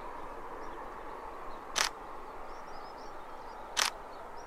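Camera shutter firing at a steady interval, one click about every two seconds, as a camera on a tripod shoots a time-lapse. Steady outdoor hiss underneath.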